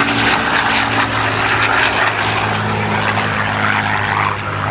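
P-51 Mustang's V-12 Merlin engine and propeller droning steadily as the fighter flies past. The engine note drops slightly in pitch about halfway through as the plane moves away.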